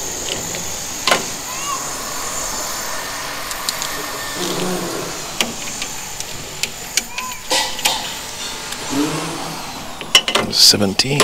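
Sharp metal clicks and clinks of a wrench on the hydraulic hose fittings of a mini excavator's control valve as a hose is being undone, with a burst of rapid clicks near the end, over a steady background noise.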